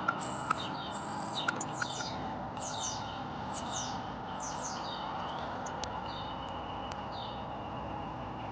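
Small birds chirping: quick runs of short, high chirps that fall in pitch, over a steady background hiss, with a few sharp clicks in the first two seconds.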